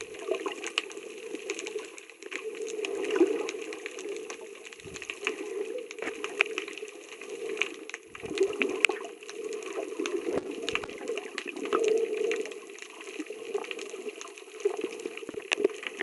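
Seawater heard through a camera under the surface: muffled sloshing that swells and fades every couple of seconds, with many short sharp clicks and crackles scattered through it.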